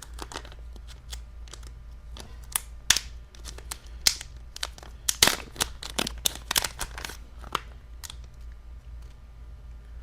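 Small plastic packaging crinkling, with irregular sharp clicks and crackles as a replacement iPhone earpiece speaker is unwrapped and handled. The crackling is busiest in the middle and thins out near the end.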